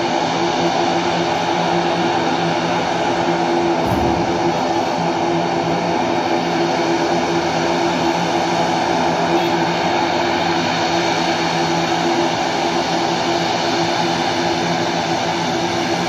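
Twin-engine turboprop airliner's propellers and engines running in a steady drone with a fixed hum as it rolls slowly on the runway before take-off. A brief thump comes about four seconds in.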